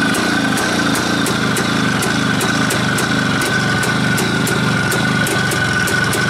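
Soviet IZh motorcycle's two-stroke engine running steadily, just caught on a cold kick-start with the choke still on. A constant high tone sits over the engine note.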